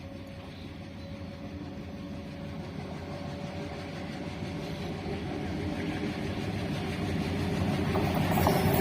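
An approaching train's diesel locomotive engine, growing steadily louder as it draws near.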